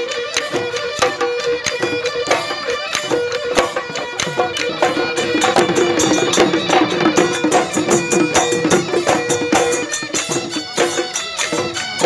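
Assamese Bihu folk music: fast, dense drumming with cymbal-like clashes under a held melody line.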